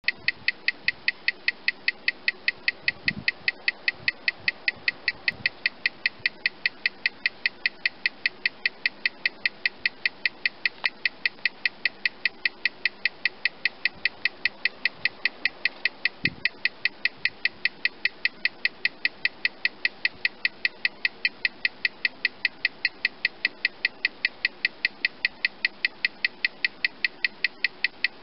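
Mechanical watch with a 30-second remontoire ticking steadily, its escapement beats picked up and amplified by a timegrapher as an even run of sharp ticks several times a second. The watch is in its weakest-amplitude position, balance swinging about 236–256°. Two faint low thumps come in, one a few seconds in and one about halfway.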